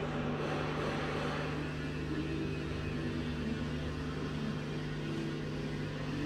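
A steady low machine hum with one strong constant tone.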